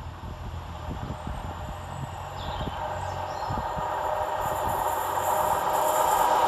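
A Northern Class 150 Sprinter diesel multiple unit approaching, growing steadily louder as it nears.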